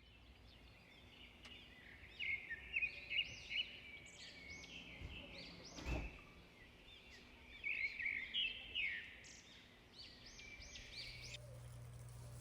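Birds chirping and singing in quick runs of short notes, with a single soft thump about halfway through.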